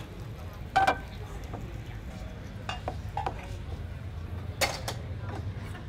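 Plates and metal tongs knocking and clinking a few times as grilled chicken is lifted off the grill and serving plates are set down on the table, over a steady low hum.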